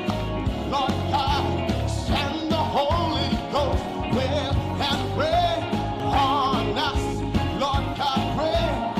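Band playing an upbeat instrumental break of a gospel song: a steady bass line and drums under a lead melody with bending notes.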